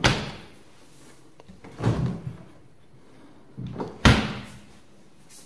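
Side-by-side refrigerator doors being shut: a sharp thud at the start and another just after four seconds in, with softer knocks between.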